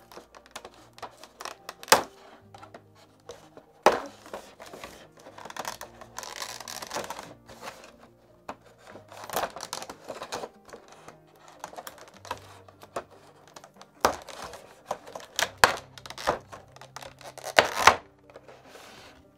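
Clear plastic packaging being handled: a thin plastic bag crinkling and rustling, and a rigid clear plastic blister tray clicking and snapping as small figure parts are pulled out of it, with several sharp plastic snaps near the end.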